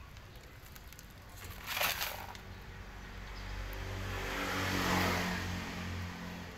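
A motor vehicle passing by: engine and tyre noise swell to a peak about five seconds in, then fade. A brief rustling noise comes about two seconds in.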